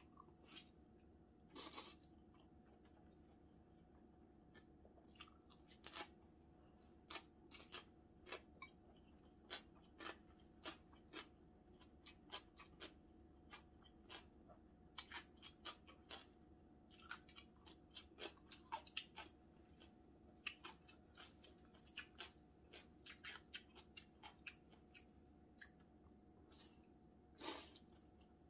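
Spicy bibim naengmyeon (cold noodles) being slurped and chewed close to the microphone: a steady run of short mouth clicks and smacks, with a few longer slurps scattered through, one near the end.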